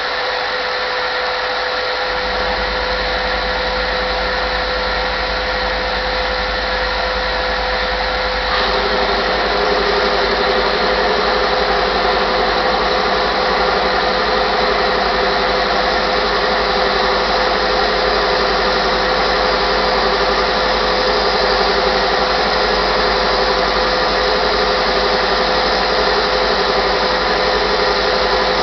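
Homemade thickness sander running with its dust vacuum on: a loud, steady machine whine and rush of air. About eight seconds in the sound grows louder as a strip of purpleheart hardwood feeds through on the conveyor and is sanded.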